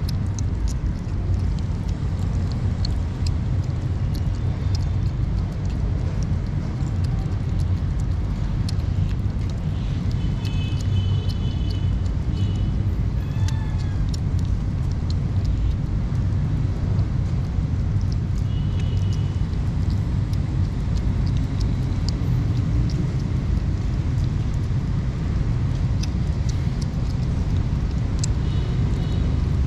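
Kittens chewing and smacking on soft wet cat food close up, with scattered wet clicks from their mouths, over a steady low rumble. A few short high chirps come and go.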